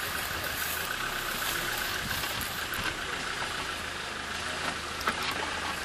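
Suzuki Jimny's engine running at low revs as the 4x4 crawls slowly over an off-road slope, with a short knock about five seconds in.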